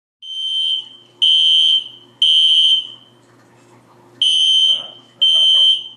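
Smoke alarm sounding in the three-beep fire pattern: loud, high-pitched beeps about a second apart in groups of three, with a pause between groups and the second group starting about four seconds in. It has been set off by a cardboard pizza box heating in the oven.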